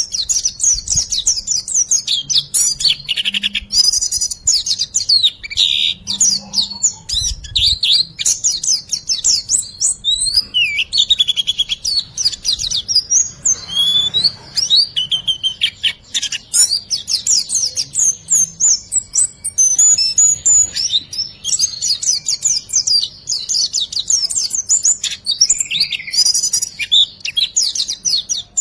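White-eye (pleci) singing a continuous, rapid, high-pitched twittering "riwikan" song: a chattering stream of quick chirps and trills, used as a master song to prompt a silent bird to sing.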